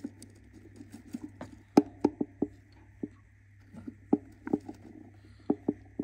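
A budgerigar shifting about on its eggs in a wooden nest box: irregular sharp taps and scratching on the wood and paper bedding, a dozen or more in a few clusters, the loudest about two seconds in. A faint steady hum runs underneath.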